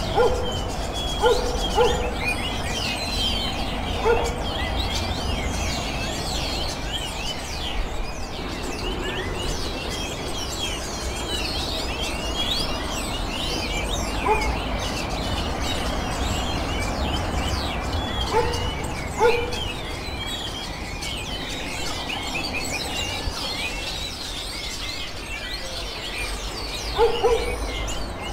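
A steady, busy chatter of many birds chirping and twittering, high-pitched. It is joined every few seconds by short, low hoots, often in pairs, over a low rumble.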